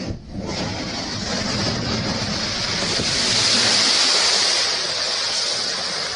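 Strong wind blowing in a steady rush that swells to a louder, hissing gust around the middle and eases off near the end.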